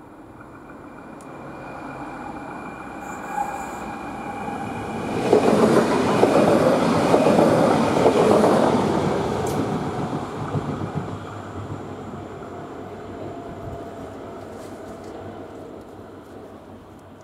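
A passenger train approaching, rushing past close by and fading into the distance: the noise builds for about five seconds, is loudest for roughly four seconds as the cars go by, then dies away slowly, with a thin steady ringing from the rails as it approaches.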